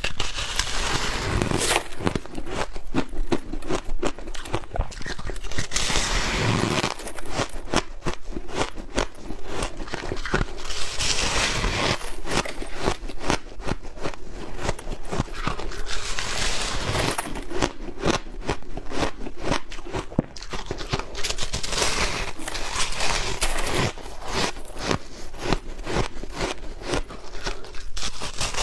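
Close-miked biting and chewing of crunchy, powdery freezer-frost ice: continuous rapid crunching and crackling, with louder bites every few seconds.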